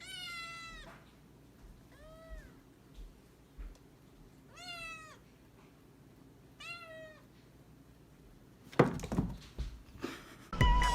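A domestic cat meowing four times, each meow under a second and rising then falling in pitch. A few short thumps come near the end.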